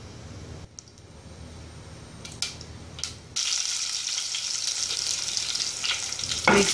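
Hot oil with mustard and cumin seeds crackling faintly in a small saucepan, with a few light clicks, then a sudden loud sizzle about three and a half seconds in as garlic cloves and fresh curry leaves hit the oil during tempering (tadka).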